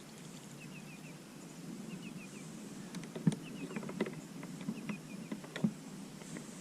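A bird calls, repeating a short falling series of three or four high notes about every second and a half. A few sharp clicks and knocks sound in between, about three, four and five and a half seconds in.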